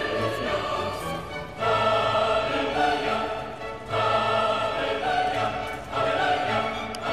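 Background music in a choral-orchestral style, with sustained sung or bowed notes swelling in phrases about every two seconds.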